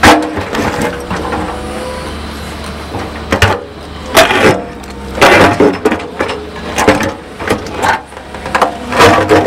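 Excavator engine running steadily while its steel bucket knocks on rock, with a SierraBlaster rock-breaking charge firing beneath the bucket partway through: a series of sharp cracks, after which smoke pours out from under the bucket.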